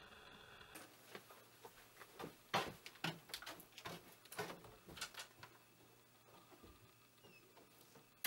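Footsteps of two people walking across a room and out through a doorway: soft, irregular knocks and scuffs, about two or three a second, thinning out after about five seconds. A faint steady tone cuts off under a second in.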